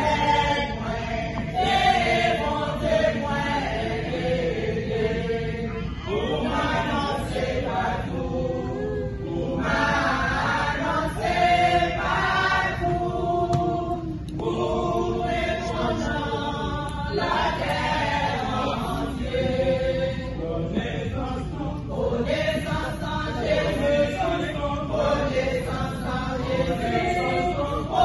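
A church choir of mostly women singing together, in sung phrases with short breaks between them.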